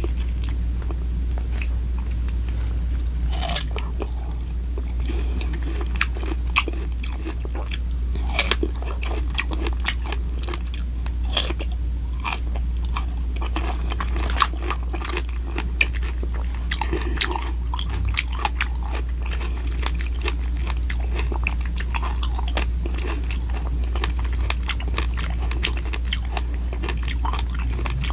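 Close-miked mukbang eating sounds: food being bitten and chewed, with many short, crisp crunches and smacks. A steady low hum runs underneath.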